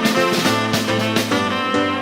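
Background music: a guitar-led instrumental track with a light drum beat.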